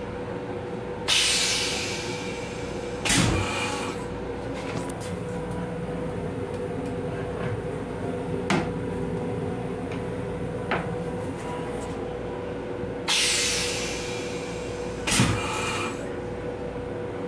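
Metro-North M7 railcar toilet flushing twice. Each flush is a hiss about a second long, then about two seconds later a sharp clunk with a short rush. A few light knocks come in between, over the steady hum and rumble of the train car.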